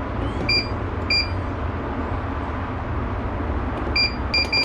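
Ultrasonic cleaner's control panel beeping as its timer buttons are pressed: short high beeps, two about a second apart early, then a quick run of three near the end, over a steady low hum.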